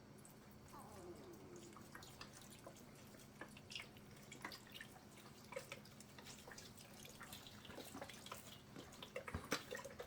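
Chicken broth being poured into the dressing mixture, dripping and trickling faintly, with scattered small clicks and taps.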